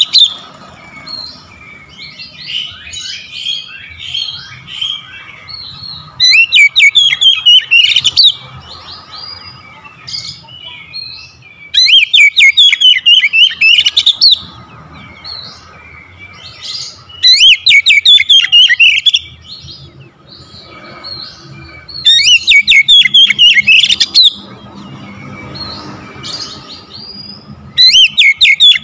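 Oriental magpie-robin singing: loud, rapid, warbling whistled phrases of about two seconds each, repeated about every five to six seconds, with softer chirps and twitters in between.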